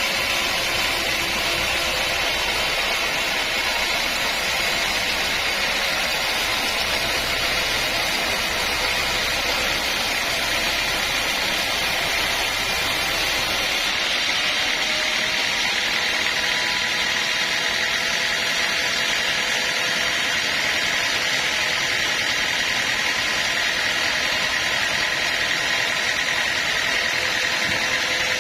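Sawmill machinery running steadily with a continuous high whine. The low rumble drops away about halfway through.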